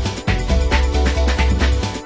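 Early-'90s electronic dance track with a deep bass line, a steady drum beat and sustained synth notes.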